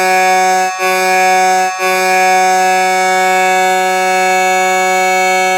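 Hockey goal horn blowing: two short blasts and then one long, steady blast on a single deep tone.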